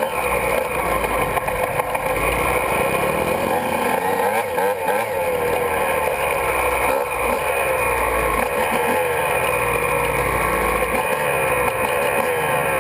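Honda CR125's 125cc two-stroke engine revving up and down continuously as the dirt bike rides a trail, its pitch rising and falling with the throttle.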